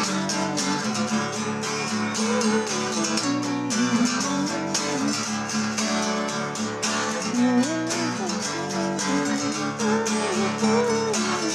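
Acoustic guitar strummed through an instrumental break between verses of a song, with a wavering melody line rising and falling over the steady chords.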